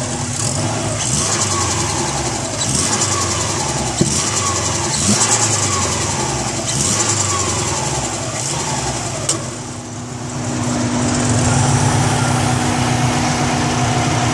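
Turbocharged Subaru EJ22 engine blipped again and again, each blip followed by a falling turbo whistle and a hissing flutter as the throttle snaps shut, the compressor surge known as turbo flutter. About ten seconds in, the revving stops and the engine settles to a steady idle.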